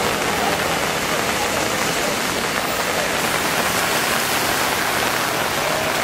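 Steady rain falling, an even hiss with no breaks.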